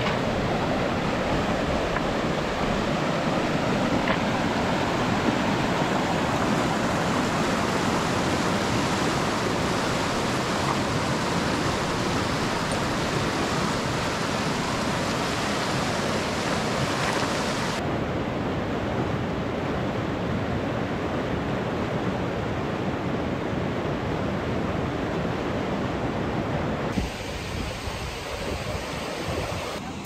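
A fast, shallow mountain stream rushing over stones: a steady, even rush of water. The sound shifts abruptly about 18 seconds in and turns a little quieter near the end.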